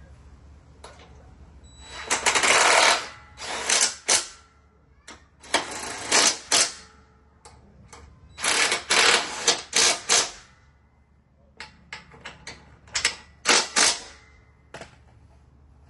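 A tool working the fasteners on a riding mower's deck spindle, in about five short bursts of mechanical noise with pauses between, the longest about two seconds in and a run of quick clicks near the end.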